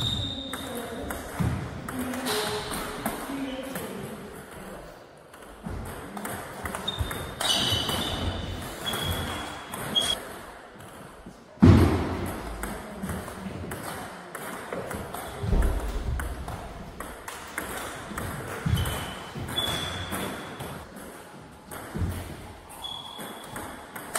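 Table tennis rallies: the ball clicks back and forth off the paddles and bounces on the table in quick runs, with short ringing pings between points. About twelve seconds in comes one much louder thump.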